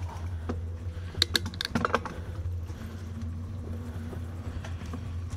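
Bicycle riding along a paved towpath: a steady low rumble, with a quick run of sharp clicks and rattles about a second in.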